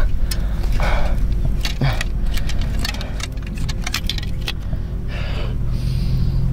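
Small hard objects, pills and kit in gloved hands, rattling and clicking in quick irregular ticks, with a couple of heavy breaths, over a low steady drone.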